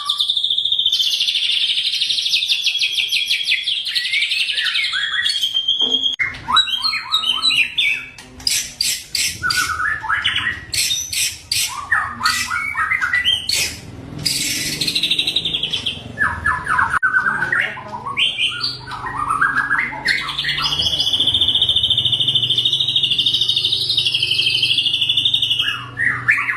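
White-rumped shama (murai batu) in full aggressive 'fighter' song: long, high trills held near one pitch at the start and again near the end, with rapid volleys of sharp, closely repeated notes and varied phrases between them. This is the tight, sharp 'shooting' song used as a lure to rouse other shamas.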